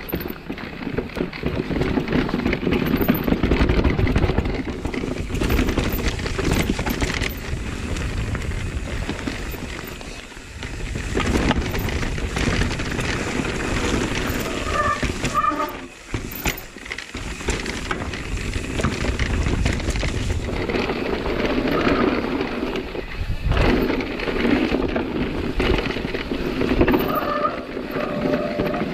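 Nukeproof Megawatt electric mountain bike riding down a forest dirt trail: tyres rolling over dirt and roots and the bike rattling over the bumps, with short lulls about ten and sixteen seconds in.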